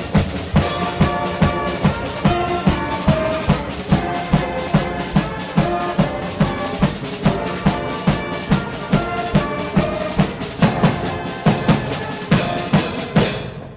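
Music with a fast, steady drum beat of about two and a half strong hits a second under a melody. It stops at the very end.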